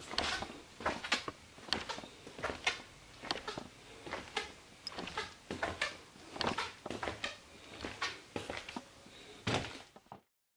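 Walking footsteps, about two a second, picked up through a covered, jostled camera along with its handling knocks; the sound cuts off suddenly near the end.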